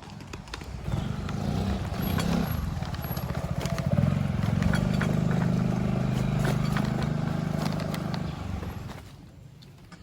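A motor vehicle's engine passing close by. It builds up over the first few seconds, runs steadily for several seconds, and drops away shortly before the end.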